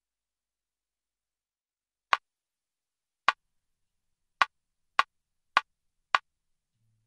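Count-in clicks ahead of the song: six sharp clicks starting about two seconds in, two slow ones, then four at twice the speed, a little under two a second.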